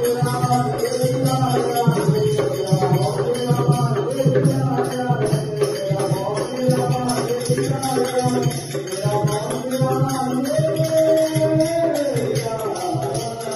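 Devotional kirtan music: a melody sung or played with pitch that bends and slides, over a hand drum and a jingling tambourine keeping a steady beat.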